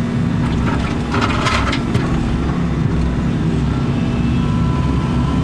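Excavator's diesel engine running steadily under work, with a brief scraping noise about a second in.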